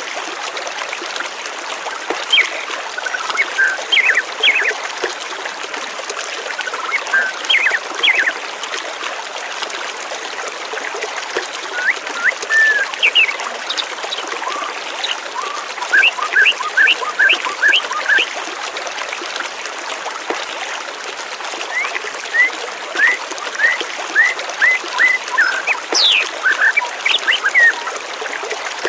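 Stream water flowing steadily, with small birds chirping over it in short bursts of quick repeated notes, several times.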